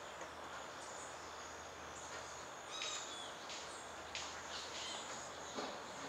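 Tropical forest ambience: a steady high-pitched insect drone with scattered short bird chirps, and a brief knock near the end.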